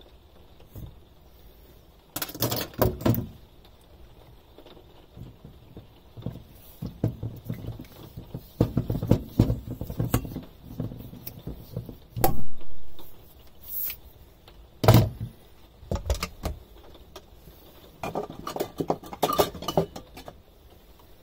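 A hand bike pump being worked through a ball-inflation needle pushed into a wine cork, forcing air into the bottle to push the cork out. The sound is irregular knocks, scrapes and rubbing of the pump, bottle and hands, with a few louder sharp knocks.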